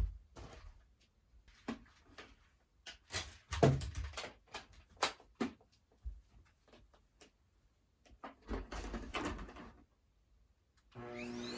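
Scattered knocks, clicks and handling clatter of things being moved about. Near the end a vacuum cleaner switches on, its motor whine rising as it spins up.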